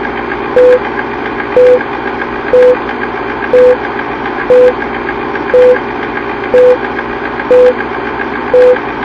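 A short electronic beep at one steady pitch sounds once a second, nine times in a row, over a steady hiss and hum. A single higher beep comes near the end.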